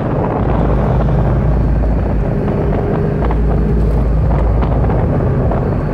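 Supercharged V8 of a 2003 Mustang SVT Cobra running at a steady engine speed, heard from inside the cabin over road and wind noise.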